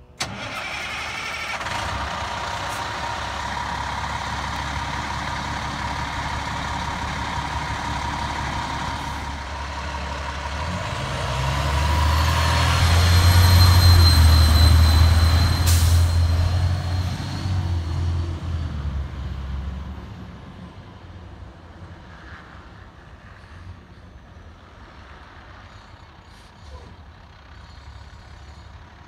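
Cummins ISM diesel engine of a 2007 International 7600 dump truck running steadily. It grows louder as the truck pulls close past, loudest about 14 seconds in, then fades as the truck drives off down the road.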